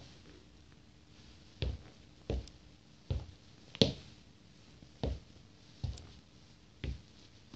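Nike Air Force sneakers stepping on a wooden floor: about seven short thuds of the soles, roughly one a second, the one near the middle the loudest.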